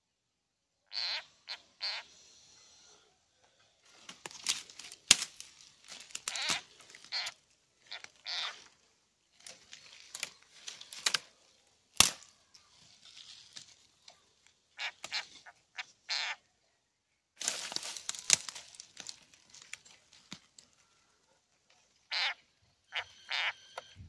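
A frog seized by a snake, giving repeated short distress cries in irregular bursts, mixed with dry leaves crackling and rustling as they struggle. A single sharp crack about halfway through is the loudest sound.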